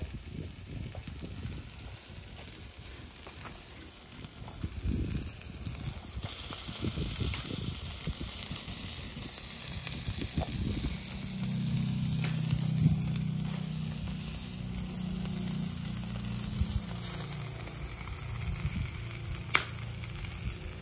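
Beef fat dripping from a skewered picanha fat cap onto live oak and charcoal embers, sizzling steadily with scattered crackles and pops as the fat renders. A low rumble joins in midway for several seconds.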